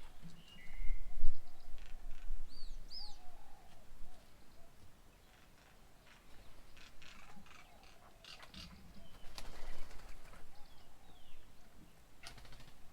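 Small birds calling: short whistled notes and arching chirps, loudest in the first three seconds, then scattered chirps and clicks. A low rumble sits under the first few seconds.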